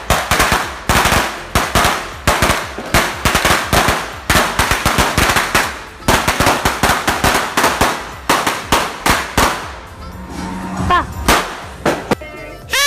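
A string of firecrackers going off on the ground in rapid, uneven pops, like machine-gun fire, for about nine seconds, then thinning to a few scattered bangs near the end.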